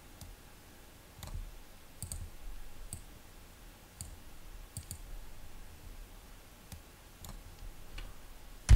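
Computer mouse clicking about ten times at irregular intervals, with a louder sharp click at the very end.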